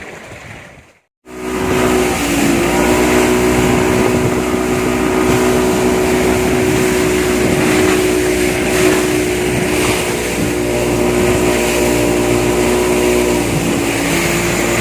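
Boat engine running steadily at cruising speed with a constant, unchanging pitch, coming in loud after a brief cut about a second in.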